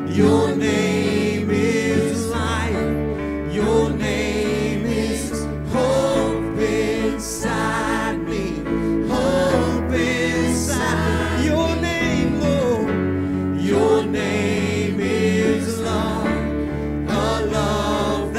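Live gospel praise-and-worship song: a singer leads into a handheld microphone over band backing with a steady bass line, and other voices sing along.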